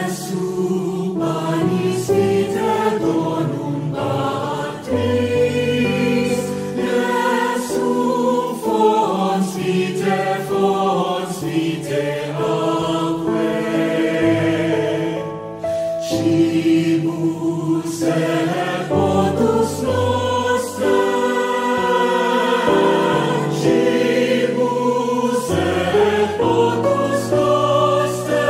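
Music with a choir singing long held chords over steady low notes.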